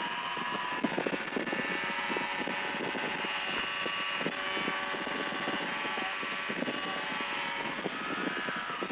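FlightStar single-seat ultralight's engine and propeller running steadily in flight, with irregular buffeting of wind on the microphone.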